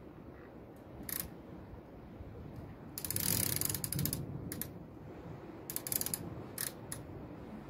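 Rapid ratcheting clicks from fishing tackle being handled: one run of fast clicks about three seconds in, a shorter run near six seconds, and a few single clicks between.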